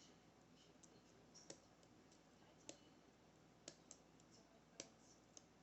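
Faint, irregular clicks of pin tumblers being lifted and set with a short hook pick inside an Assa Maximum+ high-security lock cylinder under tension, about six clicks over the few seconds.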